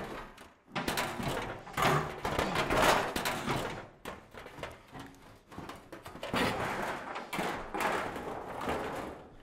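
Sheet-metal roofing and dead branches being pulled and dragged by hand: rustling, scraping and rattling in uneven bursts, loudest about two to three seconds in and again in the last few seconds.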